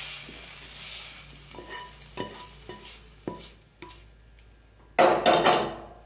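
Metal spatula scraping and tapping inside a non-stick kadai as cooked mince-and-potato filling is emptied onto a plate, with a few sharp knocks, then a louder burst of scraping clatter near the end. A faint sizzle from the hot pan fades in the first moments.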